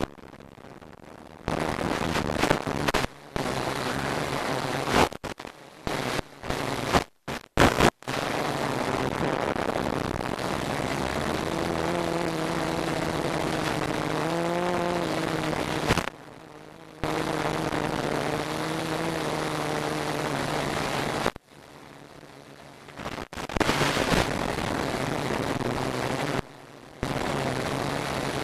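F450 quadcopter in flight, heard through its FPV link's audio: a steady rushing noise with a faint motor hum whose pitch rises and falls in the middle. The sound cuts out abruptly several times.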